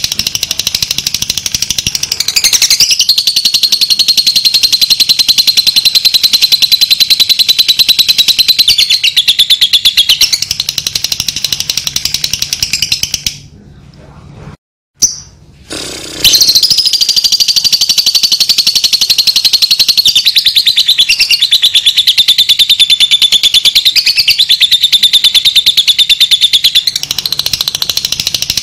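Lovebird 'ngekek': a long, rapid, high-pitched chattering trill held for many seconds at a time, its pitch wavering a little. It breaks off for a couple of seconds about halfway through, then starts again.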